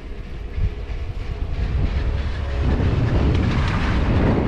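Chairlift running along its haul cable: a steady low rumble with clattering, growing louder about two and a half seconds in.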